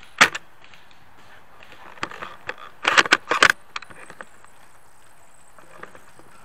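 Handling of an airsoft bolt-action Lee Enfield rifle: a single sharp click just after the start, then a quick cluster of metallic clicks and rattles about two to three and a half seconds in.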